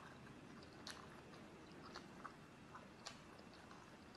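Faint chewing and biting: quiet mouth noises with a few short, sharp crunchy clicks scattered through.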